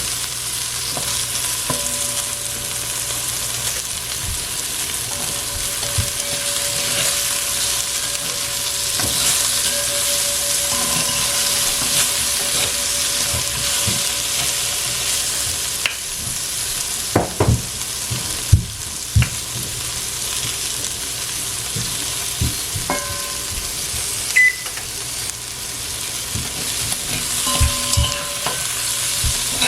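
Sliced okra frying in oil in a pot, a steady sizzle, with a few knocks of a spoon against the pot as it is stirred midway and again near the end.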